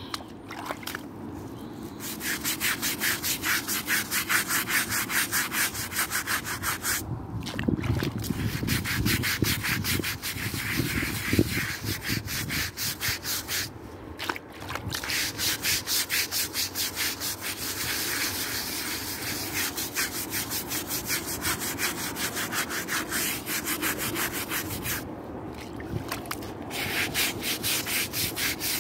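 Stiff-bristled scrub brush scrubbing a bronze plaque in quick back-and-forth strokes, working off a wet salt, vinegar and flour cleaning paste. The scrubbing stops briefly three times, and there are a few dull knocks about a third of the way in.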